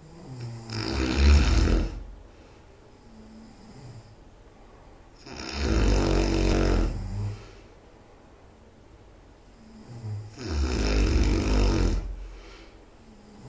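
A person snoring very loud in sleep: three long snores, each lasting about two seconds and coming about five seconds apart, with quiet breathing between them.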